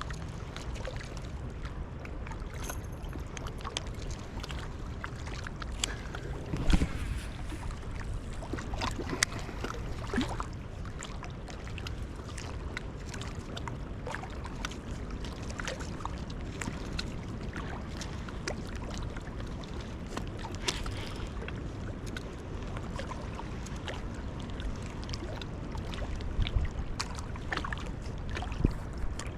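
Steady rush of wind on the microphone and flowing river water, with scattered small clicks and knocks, the loudest about seven seconds in and a few more near the end.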